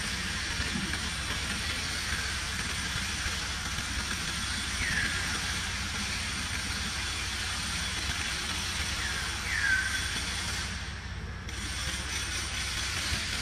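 Steady outdoor background hiss, broken by a few short high chirps that fall in pitch: one about five seconds in and a close pair near ten seconds.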